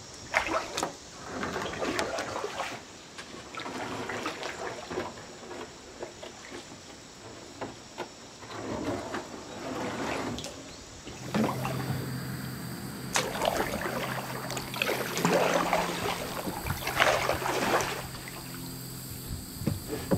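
Kayak paddle strokes in shallow river water: a watery swish every second or two, with trickling and dripping between strokes.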